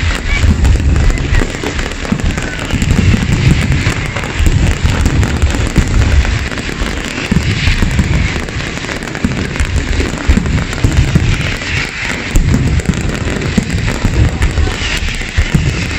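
Fireworks display: aerial shells bursting in rapid, overlapping booms, with crackling from the stars swelling every few seconds.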